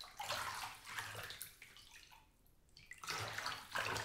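A person bathing, with bath water sloshing and splashing in a tub in two spells and a quiet gap about halfway.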